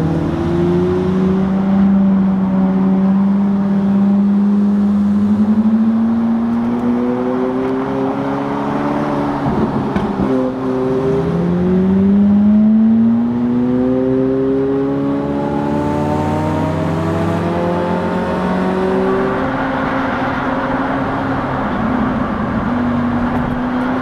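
Tuned McLaren 720S twin-turbo V8 running under load. The engine note climbs slowly, drops sharply about ten seconds in, then climbs quickly again and levels off.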